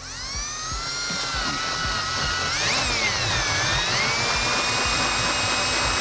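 Handheld power drill boring out a hole in a metal footpeg bracket. The motor whine rises as it spins up, sags and wavers in pitch about three seconds in as the bit bites, then picks back up and runs steady.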